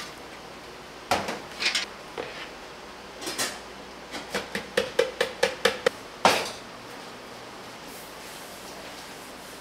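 Metal kitchen utensils knocking against cookware: a few separate clinks, then a quick run of about nine taps at three or four a second with a short ring, then one loud clank.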